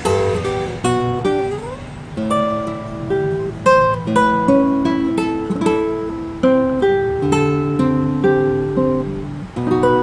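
Gotar G4s classical guitar with a solid spruce top and nylon strings, played fingerstyle: a melody of single plucked notes over bass notes and chords, with a short slide up the neck about a second and a half in.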